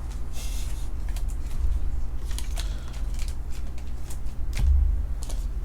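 Trading cards and foil pack wrappers being handled on a table: cards sliding and flicking with light clicks, a brief rustle about half a second in, and a soft knock near the end.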